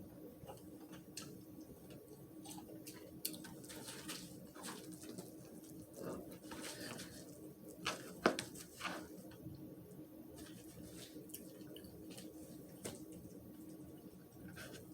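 Faint mouth sounds of eating: scattered wet clicks and smacks of chewing, busiest in the middle, over a steady low hum.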